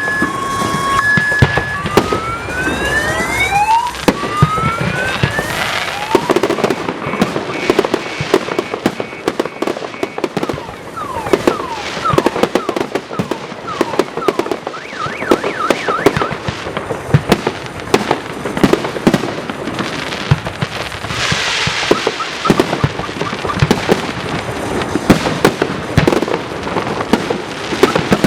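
Fireworks salute: a few whistles rising in pitch in the first seconds, then a dense run of bangs and crackling bursts.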